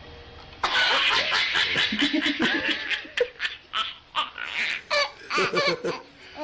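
A person laughing hard in repeated breathy bursts, dying down and returning briefly near the end.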